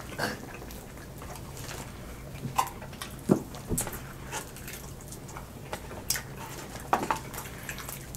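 Eating sounds of several people chewing fried chicken wings: irregular wet lip smacks and mouth clicks, a few sharp ones scattered through.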